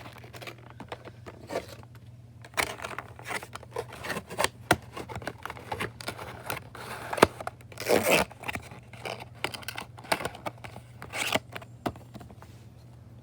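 Foam packaging inserts being fitted together and pushed back into a cardboard model box: irregular scraping and rustling with scattered sharp clicks.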